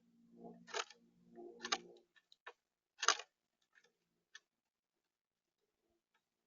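Irregular sharp clicks and taps on a bird feeder, picked up by the feeder camera's own microphone, the loudest about three seconds in. A low pitched sound in two parts runs through the first two seconds.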